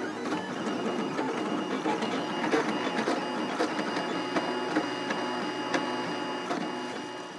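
3D printer running, its stepper motors whining and buzzing in changing tones as the extruder moves back and forth across the print, with a sharp tick now and then.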